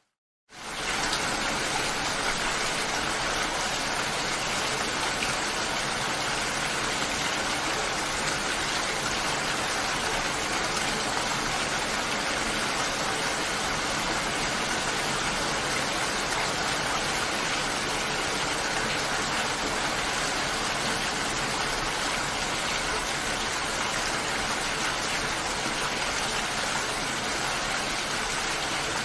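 Steady rainfall, an even hiss of rain that starts abruptly after a brief silence at the very beginning.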